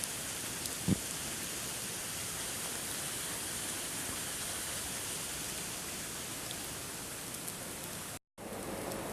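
Steady hiss of a blizzard: wind-driven snow and wind, with a single knock about a second in. The sound cuts out for a moment near the end.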